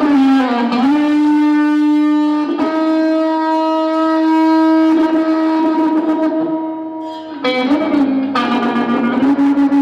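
Electric guitar sustaining loud, distorted notes in feedback. A long held note bends down at the start and holds steady, fades, and about seven and a half seconds in a new note swells in with a wavering pitch.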